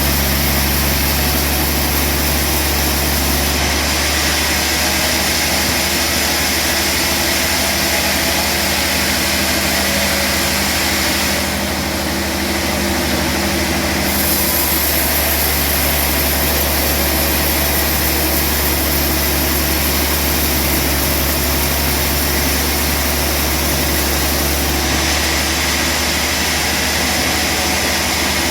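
Sawmill machinery running steadily: a motor's low hum under a high hiss, shifting in tone a few times.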